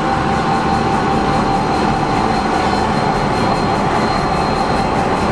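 Diesel locomotives passing at close range, their engines running loud and steady with a thin high whine over the rumble.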